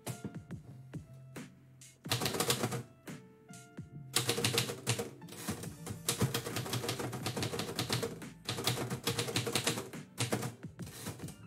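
Manual typewriter being typed on: a few scattered keystrikes, then rapid runs of keystrikes from about two seconds in.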